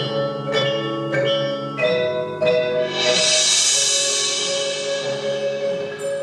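Percussion ensemble playing mallet instruments: struck marimba notes ring over a sustained low chord. About three seconds in, a bright shimmering wash swells up and fades away.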